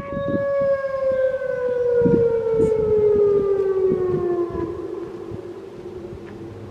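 Outdoor warning siren holding one steady tone, then winding down in pitch over about four seconds and fading away as it shuts off.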